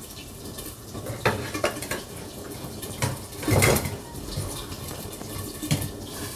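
Kitchen clatter as fried smoked-fish pieces are tipped from a wire spider skimmer onto a plastic plate: a few sharp clinks, and a longer scraping rattle about three and a half seconds in.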